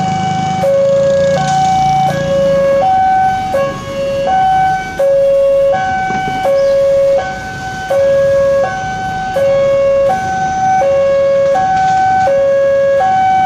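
Railway level-crossing warning alarm sounding its two-tone electronic signal, alternating steadily between a lower and a higher tone about every 0.7 seconds, the warning that a train is coming and the barriers are closing. A low rumble of traffic runs under it for the first couple of seconds.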